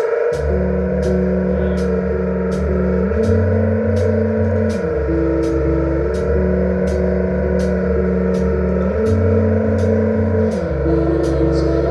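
A rock band playing live, instrumental with no singing. A sustained guitar wash runs under a bass line that comes in just after the start and steps between a few low notes, with a steady high tick about twice a second keeping time.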